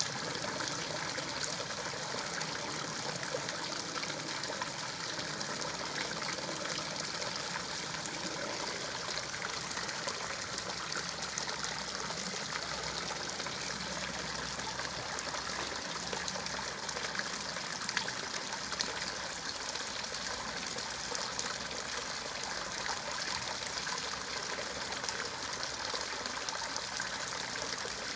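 Steady trickle of running water, an even rushing hiss with a few faint ticks.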